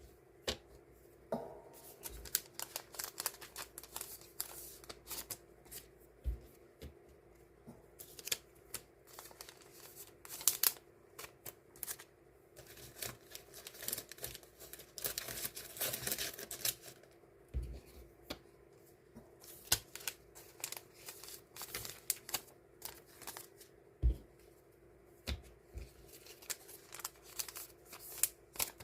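Paper die-cut stickers being handled and sorted by hand: a string of small paper rustles, flicks and taps, busiest in the middle.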